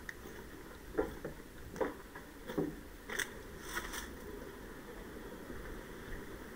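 Footsteps crunching on rubble and grit on a concrete floor, about five steps a little under a second apart, the last ones sharper and clickier. They die away about four seconds in, leaving a faint steady background.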